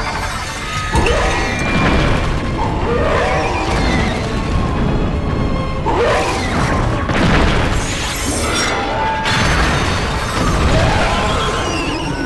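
Giant-monster fight sound effects: repeated monster roars, heavy impacts and crashing, over background music.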